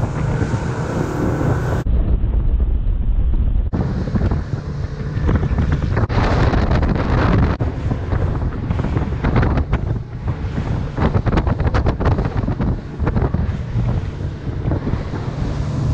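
Heavy wind buffeting on the microphone as a center-console fishing boat runs at speed over calm sea, with the rush of water and the boat's engine beneath. The sound changes abruptly twice in the first four seconds, then settles into steady gusty rumbling.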